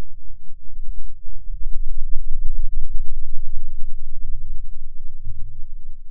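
A cartoon soundtrack slowed to 1/64 speed, stretched into a loud, low, uneven rumble with faint swelling and fading throbs.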